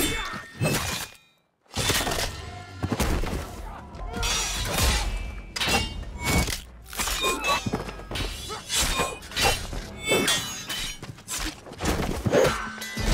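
Steel swords clashing in a fast fight: a quick string of sharp metallic clangs with a short ring after each, mixed with dull thuds of blows, over a film music score. The sound cuts out briefly about a second in, then the clashes resume densely.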